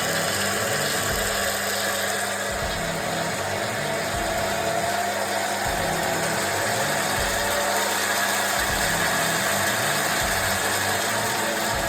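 Einhell BT-ML 300 mini lathe running, its motor and belt-driven spindle giving a steady mechanical whine that comes on abruptly. The plastic-cog timing belt has just been re-tensioned so it no longer slips under load.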